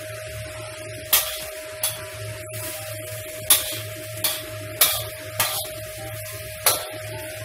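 A metal spatula knocks and scrapes against a wok while chicken and cucumber are stir-fried: about seven sharp clanks at uneven intervals over a steady sizzle.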